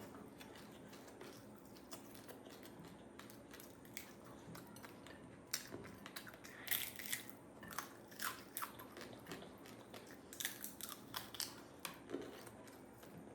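A person eating and chewing a meal of rice and curry, with scattered small clicks from the mouth and food. The clicks are busiest about seven and eleven seconds in.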